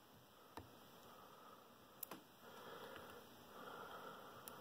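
Mostly near silence, with three faint clicks and soft scraping from lock picks working the pins inside a Schlage Primus lock cylinder.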